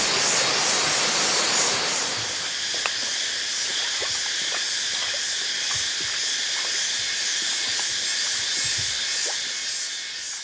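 Steady high-pitched drone of insects, with a few faint ticks; it fades out near the end.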